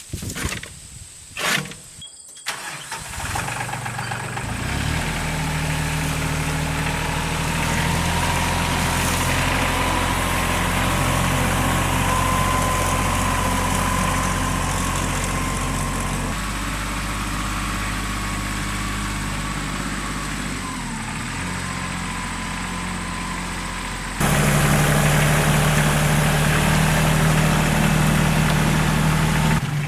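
A vehicle engine starts and settles into a steady run. About 24 seconds in it becomes abruptly louder.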